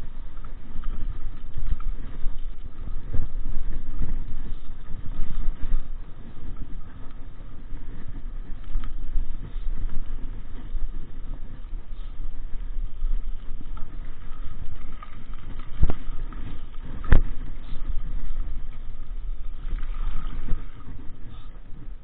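Mountain bike riding over a rough dirt trail: an uneven low rumble of tyres and frame vibration. Past the middle come two sharp knocks about a second apart.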